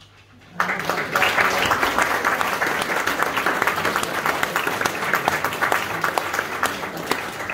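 Audience applauding, breaking out suddenly about half a second in and easing off slightly near the end.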